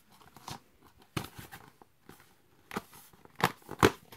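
Plastic DVD cases being handled: a few sharp clicks and clacks, the loudest two close together near the end.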